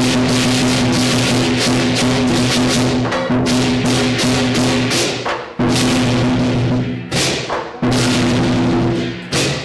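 Lion dance percussion: a large drum beaten fast under clashing cymbals, loud and continuous, with short breaks a little after five seconds and again around seven to eight seconds.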